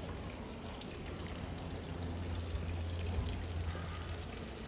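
Water from a fountain's spouts pouring into its basin, a steady splashing, over a low steady rumble.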